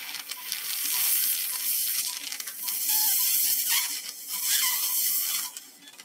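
Surgical suction hissing as its tip draws blood from the bleeding vertebral venous sinus. The hiss dips briefly twice near the middle and cuts off shortly before the end. An anaesthetic monitor beeps at a steady pace of a little under two beeps a second.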